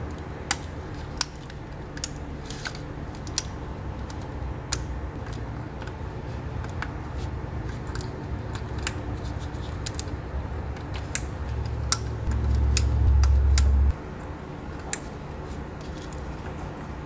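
Plastic electrical connectors and wiring-harness clips being pushed into place by hand on an engine, a scattered series of sharp clicks with the rustle of the harness. About two-thirds of the way through, a low rumble swells for about two seconds and cuts off suddenly, over a steady low hum.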